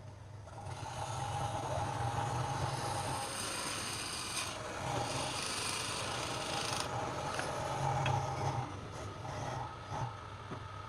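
Wood lathe running with a steady motor hum, while a tool scrapes against the spinning wood in several passes, the loudest from about a second in to about seven seconds.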